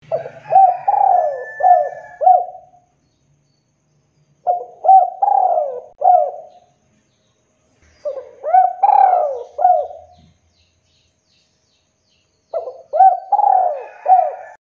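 Spotted dove cooing: four phrases of four or five arching coos each, one roughly every four seconds with short pauses between.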